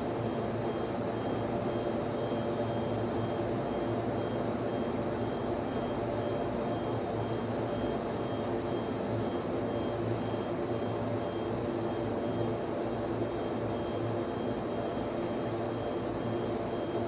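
Server room cooling fans running steadily: an even whooshing drone with several constant hum tones, plus a faint high-pitched tone that pulses on and off.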